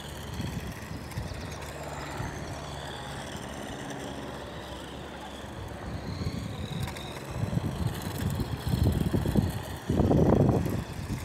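Radio-controlled model car driving over concrete. Gusts of wind buffet the microphone in the last few seconds, loudest near the end.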